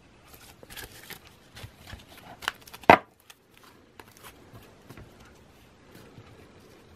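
Clear plastic trading-card holders clicking and rustling against each other as sleeved cards are handled and set down onto a stack, with a sharp plastic click about three seconds in.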